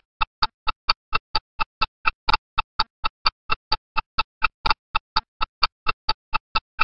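Rapid, even ticking, about four ticks a second, each tick the same sharp click with a slight pitched ring, starting and stopping abruptly out of silence.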